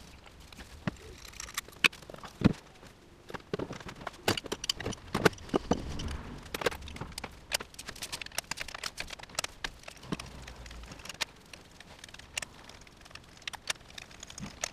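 Irregular clicks and knocks of a hand tool against metal as the camshaft cover bolts are undone, over a faint low hum.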